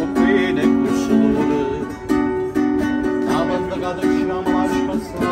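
Music: a plucked string instrument playing a melody of quick repeated notes over chords, an instrumental stretch of an Italian song.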